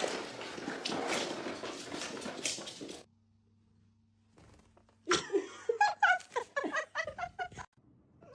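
A pet animal giving a quick run of short, pitched cries, after about three seconds of rustling noise.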